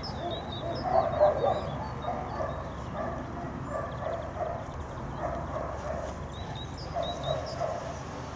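Dogs barking, short barks often coming in pairs, repeated several times.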